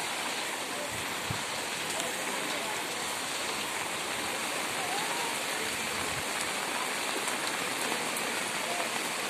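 Steady rushing of a swollen, muddy floodwater river flowing fast.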